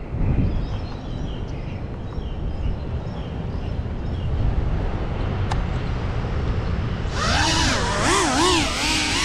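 Small ducted FPV drone's motors and propellers whining up from about seven seconds in, the pitch swinging up and down in quick swells as the throttle is worked. Before that, a steady low rumble with faint high chirps.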